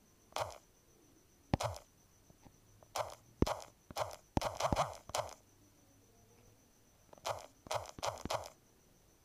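Fingertip taps on a smartphone touchscreen while typing, heard through the phone's own microphone as short soft thumps and clicks. They come irregularly in small clusters, pause for about two seconds past the middle, then resume in a quick run near the end.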